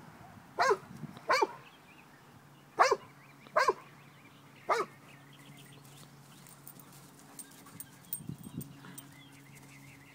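A dog barking during rough play: five short barks, two quick pairs and then a single one about five seconds in.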